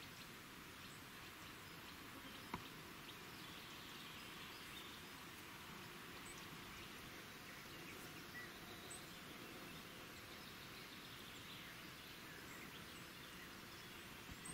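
Faint outdoor ambience: a steady hiss with scattered faint ticks, and one short sharp click about two and a half seconds in.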